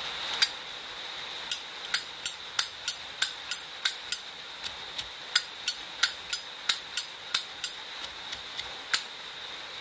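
Silver-plated Zippo lighter's lid flipped open and snapped shut over and over, a quick run of sharp metallic clicks about three a second. Its hinge pin has been re-fitted so the lid closes tight on the case.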